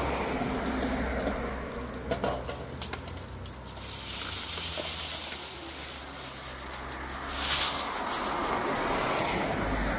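Hiss from an outdoor cooking fire, brightening about four seconds in, with a brief louder burst of hissing about seven and a half seconds in, over a low steady hum.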